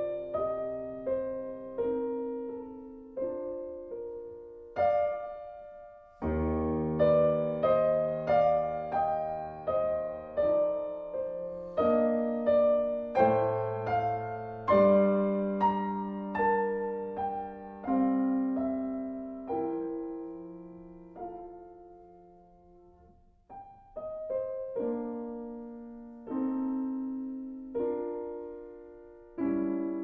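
Slow, gentle solo piano music, single notes and chords struck one after another and left to fade, thinning out to a few quiet notes about two-thirds of the way through.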